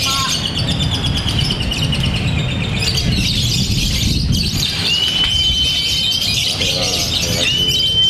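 Lovebird singing a long, unbroken high chattering song, with a crowd murmuring underneath. Two long, steady whistled notes come in the second half, one about five seconds in and one near the end.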